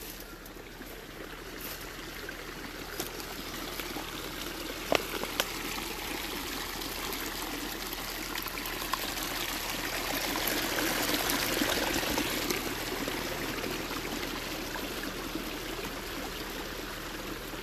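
Small forest stream trickling, swelling louder around the middle and easing off again, with a few sharp clicks in the first third.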